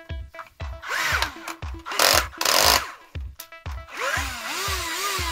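Einhell cordless drill run in short spurts, its motor whirring up and down in pitch, loudest about two seconds in.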